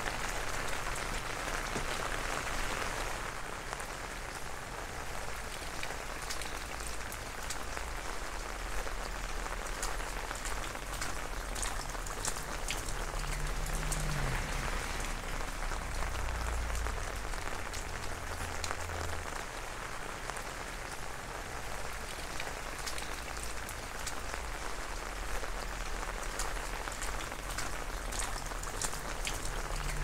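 Steady rain falling on wet pavement and roofs, with many small drops and drips ticking through it.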